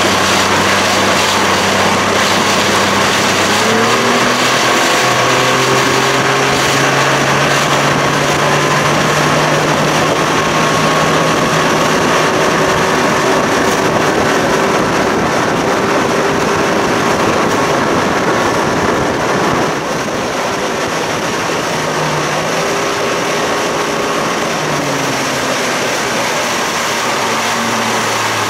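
1992 Johnson 60 hp two-stroke outboard, running on swapped-in carburetors, pushing the boat along at speed with wind and water noise. Its pitch rises a few seconds in, then dips and comes back up a couple of times in the second half as the throttle is eased.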